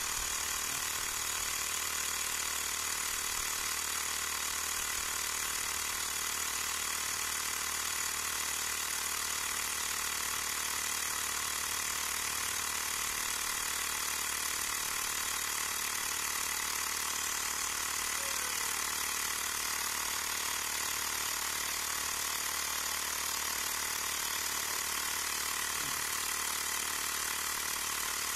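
Xiaomi Mi portable electric air compressor running at a steady, unchanging pitch as it pumps air into a motorcycle's front tyre, the pressure rising from 22 PSI.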